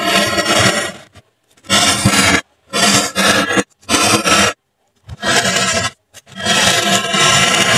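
A pen-like tool scraping grooves into polystyrene foam board, in about six rasping strokes with short silent gaps between them.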